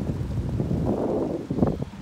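Wind buffeting the microphone in uneven gusts, a low rushing noise that swells a little past halfway.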